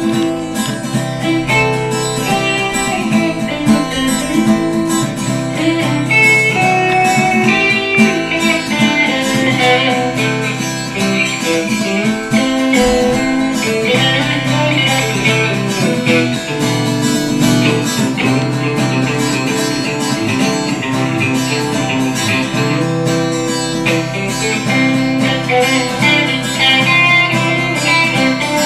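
Two guitars jamming together, plucked and strummed notes running on without a break.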